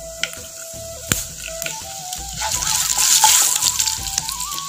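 Urad dal sizzling in hot coconut oil with the already-popped mustard seeds, the first step of a tempering, with a few sharp crackles through it.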